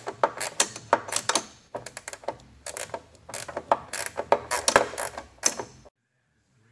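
A 9/16 ratcheting wrench clicking in quick, uneven runs as it loosens a fender bracket bolt, stopping suddenly near the end.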